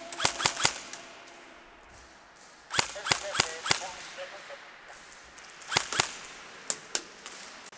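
Airsoft guns firing in short volleys of sharp snapping shots: a quick burst right at the start, another about three seconds in, then a couple of shots near six seconds and two single shots just after.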